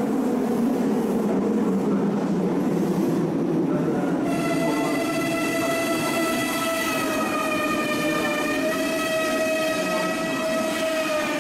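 Meitetsu 2000 series μSKY electric train pulling into an underground platform: a low running rumble, then from about four seconds in a steady high-pitched whine as it slows, wavering slightly and fading near the end.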